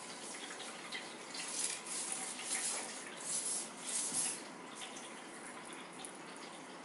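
Rustling swishes of a feather wand toy being waved and batted by a kitten, a cluster of brief bursts over a steady hiss that die away about two thirds of the way in.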